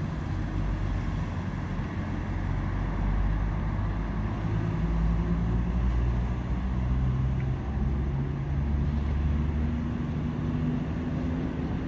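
Diesel engines of heavy vehicles pulling through a junction: a recovery truck towing a double-decker bus, then a bus passing close. The low engine note shifts in steps and rises near the end.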